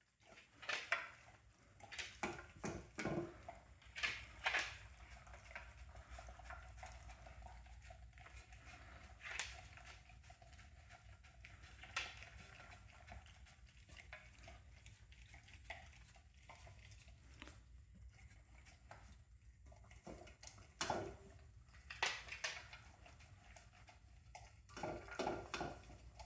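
A dog eating from its food bowl: faint, scattered clicks and knocks of the bowl and licking, coming in short clusters with pauses between.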